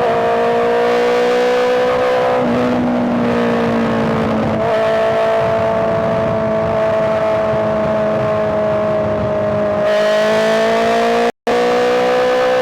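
Honda CBR650R's inline-four engine running at fairly steady revs. Its pitch steps slightly twice and rises gently near the end. The sound cuts out for a split second near the end.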